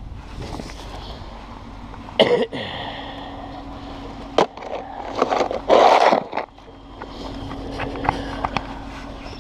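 Snow shovel scraping and knocking on pavement: a sharp scrape about two seconds in, a short knock a couple of seconds later, and a longer, loud scrape past the middle, over a faint steady low hum.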